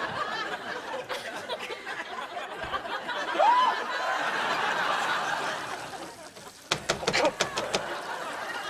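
Sitcom studio audience laughing, with a rising whoop about three and a half seconds in. The laughter dies away about six seconds in, and a few sharp clicks and knocks follow.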